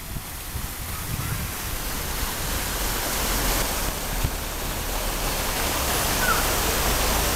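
Fountain jets spraying onto river water: a steady rushing hiss.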